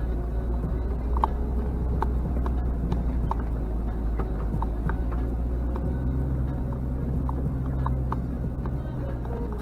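Off-road vehicle's engine running steadily with a low hum, with scattered light knocks and rattles.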